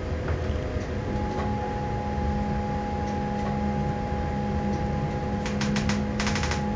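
Train running, heard from inside: a steady hum over a deep rumble, with a few thin steady tones above it. About five and a half seconds in, short bursts of fast clattering clicks start.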